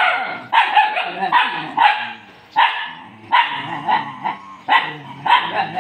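Young dog barking at another dog in a face-off: about a dozen sharp, high barks in quick succession.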